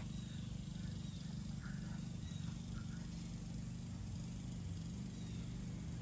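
A steady low mechanical hum with a fast, even flutter, with a few faint short chirps above it.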